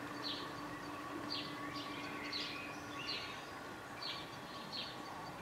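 A songbird calling repeatedly in short, falling chirps, roughly one a second, over faint outdoor background noise and a low steady hum.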